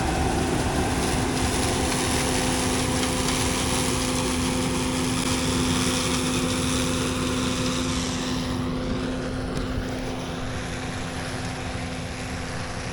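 Heavy harvest machinery running steadily: an even engine drone with a steady hum under a broad hiss. The hiss drops away about eight seconds in, and the drone goes on.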